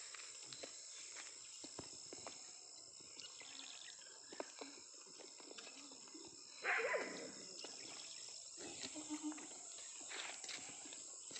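A goat bleats once, about seven seconds in, over a steady high hiss and a few faint clicks.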